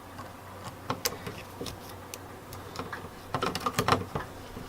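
Scattered small clicks and taps of electrical wires, an outlet and hand tools being handled, with a busier run of clicks about three and a half seconds in.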